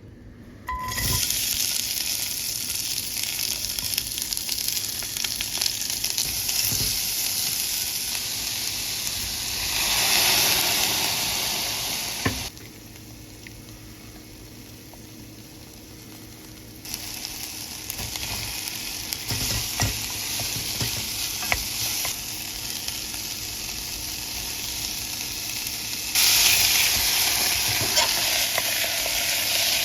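Food sizzling in a hot frying pan as it is stirred, a loud hissing fry with occasional clinks. The sizzle starts about a second in, falls away for a few seconds in the middle, then returns louder near the end.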